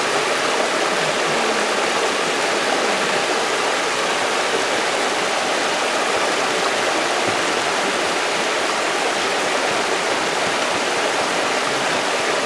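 Creek water rushing steadily over a low rock weir in a small cascade.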